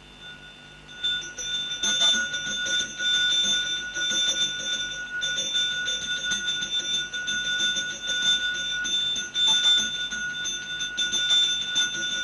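Puja bell rung continuously during worship: a steady metallic ringing with many quick repeated strikes, starting about a second in.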